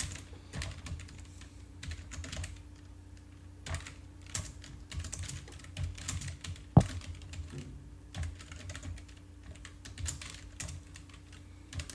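Computer keyboard being typed on: irregular short key clicks with brief pauses, and one sharper, much louder click about seven seconds in. A faint steady low hum runs underneath.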